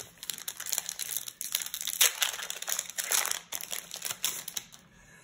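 A Flesh and Blood trading-card booster pack wrapper being torn open and crinkled in the hands: a dense crinkling rustle, loudest about two and three seconds in, that dies away near the end.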